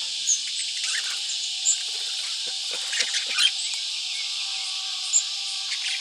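Budgerigars chirping and twittering: short, sharp high chirps scattered through, with a small cluster of brief calls in the middle, over a steady high-pitched hiss.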